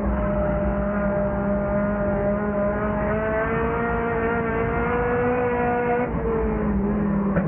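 Lightning 4 class race car's engine heard from inside the car under power, its pitch climbing slowly, dipping briefly about six seconds in, then holding steady again.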